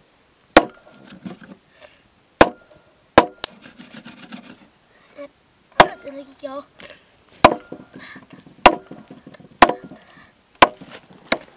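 Chopping with a blade on wood: about ten sharp, loud strikes at uneven intervals of roughly a second, with soft rustling between them.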